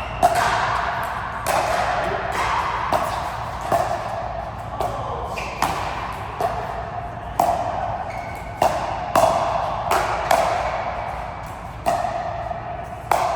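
Rally in a racket sport: a run of sharp ball-and-racket hits, one every half second to a second and a half, each ringing briefly in a large hall.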